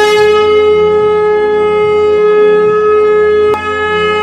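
A long, steady held note on a wind instrument, rich in overtones. A sharp click breaks it about three and a half seconds in, and the same note carries on just after.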